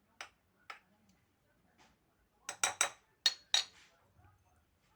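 Kitchen containers and utensils clinking and knocking: two light clicks near the start, then a quick run of about five sharper clinks with a short ring around the middle.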